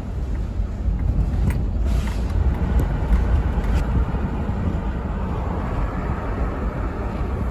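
Road and engine noise heard inside a moving car's cabin: a steady low rumble.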